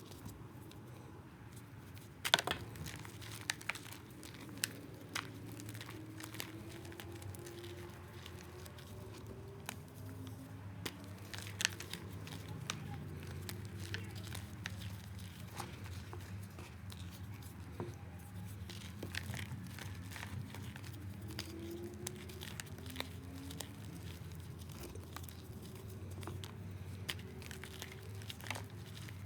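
Hard balls of reformed gym chalk being crushed: continuous crunching and crumbling with sharp cracks as pieces break, the loudest crack about two seconds in.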